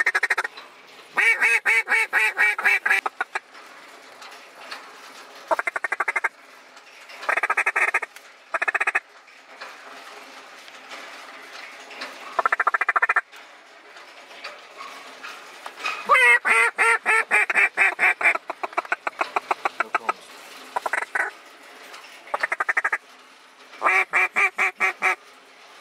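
Hand-blown duck call from the blind, sounding about ten runs of rapid quacking notes with short pauses between them, calling to ducks circling overhead. The longest and loudest runs come a second in and again past the middle.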